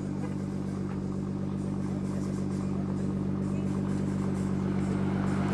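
2017 Nissan GT-R's twin-turbo V6 idling steadily, slowly getting a little louder.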